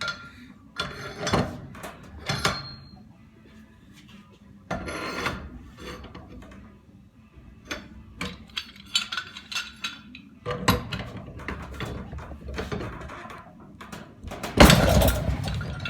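Irregular metallic clanks and knocks of tools and parts being handled while a Graco Fireball 300 air-operated pump is taken apart, with a louder clatter near the end.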